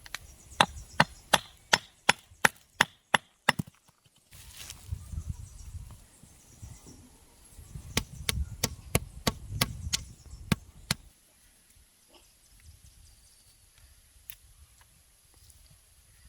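Chopping on wood: two runs of about ten sharp, even strokes each, roughly three a second, the second run starting about eight seconds in.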